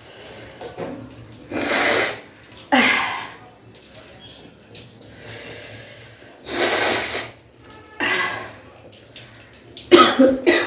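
A woman sneezing and coughing about five times, loud and sudden each time, set off by the fumes of very hot spicy food being cooked.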